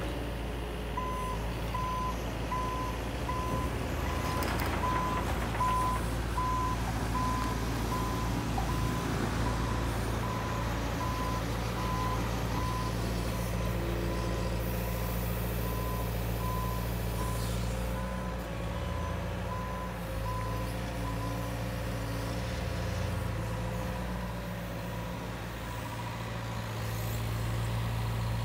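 Yanmar Vio50 mini excavator's diesel engine running steadily while its motion alarm beeps in a regular series of single-tone beeps. The beeping stops about three-quarters of the way through, and the engine runs on.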